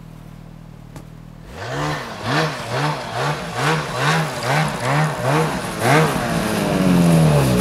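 Ski-Doo MXZ XRS 800 E-TEC snowmobile's two-stroke engine idling low, then blipped over and over, about two quick revs a second, before a longer held rev near the end.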